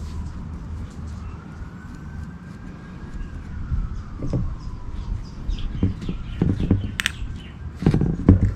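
Birds chirping in the background over a low steady rumble, with a faint long tone slowly rising and falling. In the second half come scattered knocks and clicks of brake parts and tools being handled, loudest near the end.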